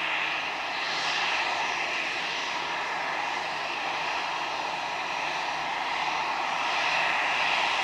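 Airbus A320 jet engines running at taxi power as the airliner rolls on the ground: a steady rushing whine, growing a little louder near the end.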